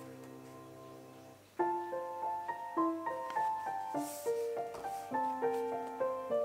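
Background piano music: a held chord fades away, then a new phrase of single notes begins about a second and a half in and runs on at an even pace.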